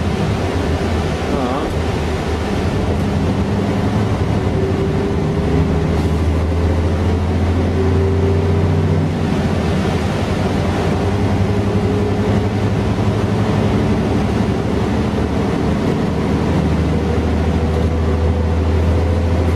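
Mercedes-Benz O407 bus's rear-mounted six-cylinder diesel engine running steadily under way, heard from inside the passenger cabin over road noise. Its pitch rises slightly near the end as the bus gathers speed.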